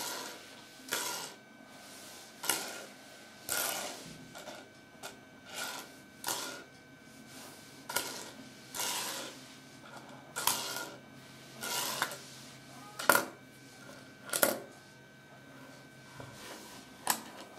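Small plastic Kinder Surprise toy figures being handled and set down on a wooden tabletop: a string of light clicks, knocks and short rustling scrapes, about one every second or so, with the sharpest click about two-thirds of the way through.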